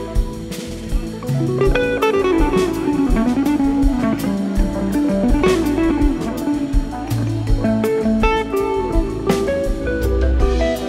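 A live band plays an instrumental jam: an electric guitar leads with runs that slide downward, over sustained low bass notes and steady drum-kit hits.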